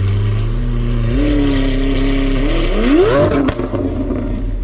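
Lamborghini Aventador V12 being revved through its exhaust: the engine note steps up from idle about a second in and holds, then a sharp rev climbs and drops back near three seconds in, with two sharp cracks from the exhaust as it falls, before settling back toward idle.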